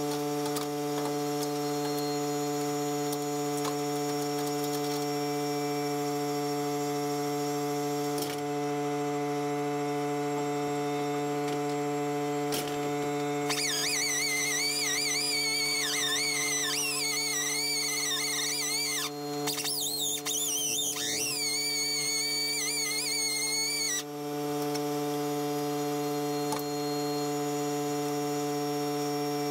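Electric angle grinder running steadily, its motor giving a constant whine. From about halfway through, a higher, wavering squeal rises and falls for several seconds as the disc works the sheet steel around the bus's rusted jack-point "top hat".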